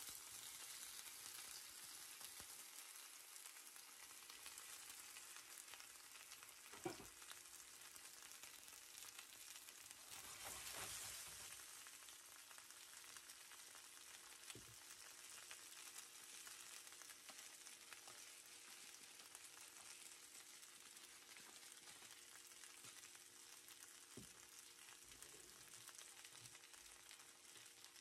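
Potato wedges frying in hot oil in a stainless steel skillet: a steady, even sizzle that slowly eases, with a brief louder swell about ten seconds in and a few light knocks.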